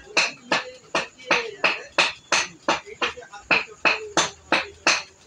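A steady, evenly spaced run of sharp strikes, about three a second and some fourteen in all.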